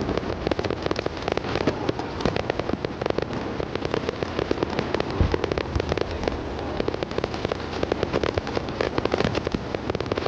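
Fireworks display: a dense, rapid crackling of many small pops and bursts, with one deeper boom about five seconds in.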